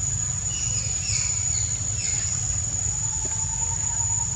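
Insects droning steadily on one high-pitched tone, with a few short falling chirps about a second in.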